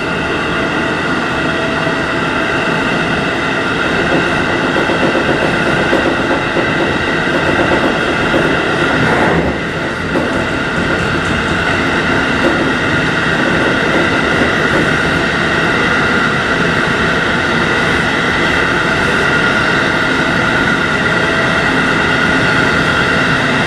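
JR Hokkaido 711 series electric train running at steady speed, heard from inside near the front: continuous running noise with several steady whining tones. There is a brief dip in the sound about nine seconds in.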